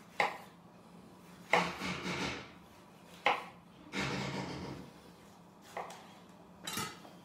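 Chef's knife slicing through a tomato and knocking down onto a bamboo cutting board, five cuts one to two seconds apart, each a short rasp ending in a sharp tap of the blade on the wood.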